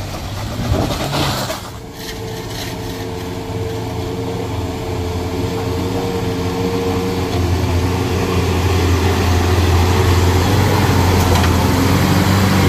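Heavy road vehicle's engine running at a steady speed with a low, even hum, growing louder over the first several seconds and then holding.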